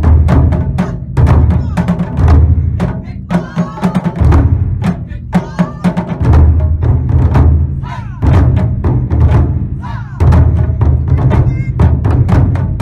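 Taiko ensemble drumming: large odaiko on stands and a row of smaller drums struck with wooden sticks in a driving rhythm. Deep low drum strokes come in groups about once a second, with quick, sharp stick strikes in between, and voices call out briefly here and there.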